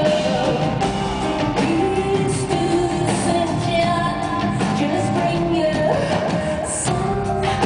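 Live rock band music with a woman singing over keyboards, bass and drums, recorded in a concert hall.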